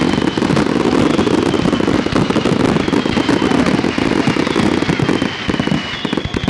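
Fireworks going off in a dense barrage: rapid, overlapping bangs and crackling that thin out to separate pops near the end.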